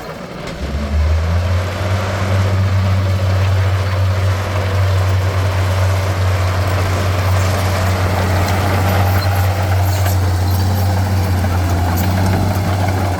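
Heavy diesel engine of earthmoving machinery running steadily, a loud, even low drone that holds without revving up or down.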